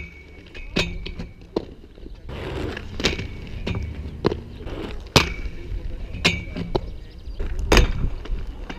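Aggressive inline skates hitting, grinding along and dropping off metal rails, with several sharp knocks from the skates' hard frames and soles striking the rail and concrete. Some knocks are followed by a short high ring from the metal, over the low rumble of wheels rolling on concrete.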